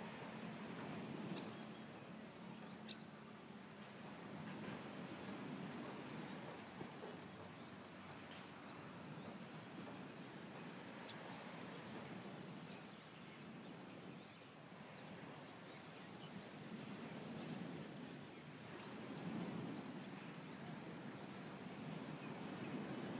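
Outdoor beach ambience: a low, steady rush that swells and fades every few seconds, with faint high chirping over it and a quick run of chirps in the middle.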